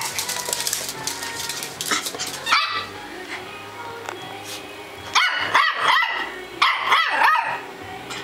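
Poodle barking in short, sharp bursts: a single bark near the start and another about two and a half seconds in, then two quick runs of barks about five and seven seconds in.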